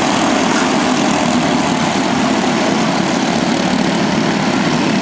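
Small four-stroke racing kart engines running steadily, a dense, even engine drone heard from the grandstand.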